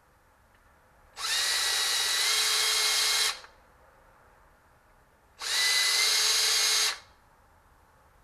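Cordless drill with a countersink bit, run in two short bursts of about two seconds and a second and a half, countersinking a hole in a soft PLA 3D-printed plastic part. The motor whine steps up slightly in pitch partway through the first burst.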